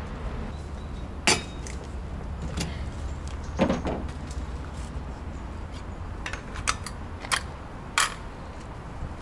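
Scattered metal clinks and knocks as the steering wheel is pulled off a VAZ-2101's column and handled. There is a short clatter about three and a half seconds in and a quick run of clicks near the end, over a low steady hum.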